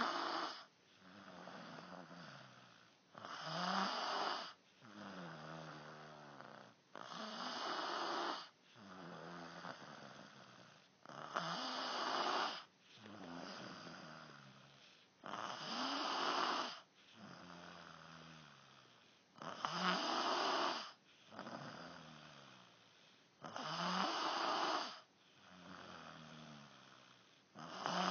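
Steady, rhythmic snoring: a louder snore about every four seconds, with a softer one in between.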